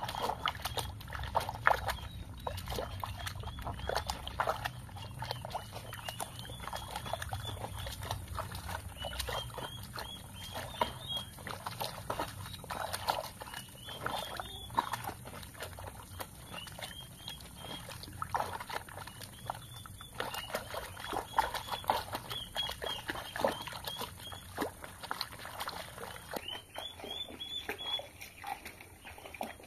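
Bare feet treading clothes in a plastic basin of soapy water: irregular sloshing and squelching strokes, with short high squeaks recurring throughout.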